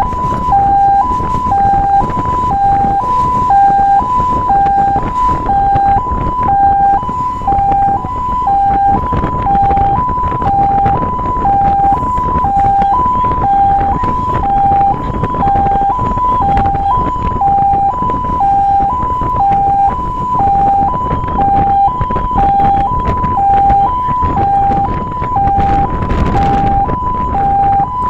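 Fire pumper's two-tone hi-lo siren, close to the roof speaker, switching evenly between a higher and a lower tone about once a second over the rumble of the moving truck. A louder rush of noise swells briefly near the end.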